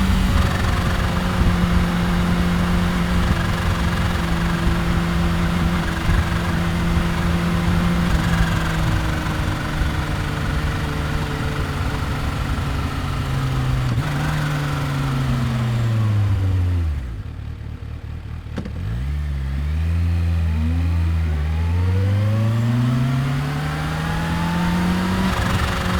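2015 Kawasaki Ninja H2's supercharged inline-four cruising at a steady pitch, then slowing, its pitch falling to a quieter low note around the middle. It then pulls away again with its pitch climbing through the last few seconds.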